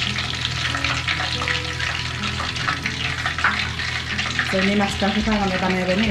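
Breaded chicken pieces deep-frying in hot oil in a pan, a steady sizzling crackle, while cooked pieces are lifted out with a metal slotted spatula.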